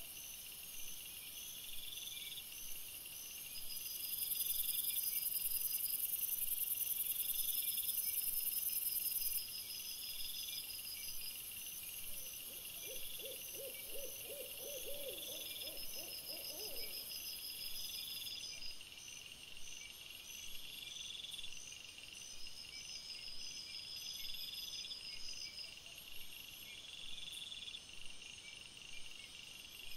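Night insects, crickets, chirping in regular repeating bursts and trills over a steady high hiss; the hiss grows louder from about four to nine seconds in. About halfway through, a short series of rapid, low pulsed calls sounds for about four seconds.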